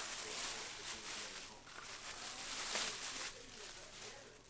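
Packaging wrap rustling and crinkling as the security light is unwrapped, with fine irregular crackles; it dies down after about three seconds.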